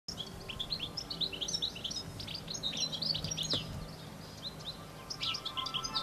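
Small songbirds chirping and twittering: many quick, high, overlapping chirps, busiest in the first half, thinning out for a moment and then picking up again near the end.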